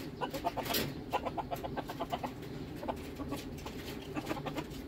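Broody hen sitting on her eggs, clucking softly in quick runs of short, low clucks.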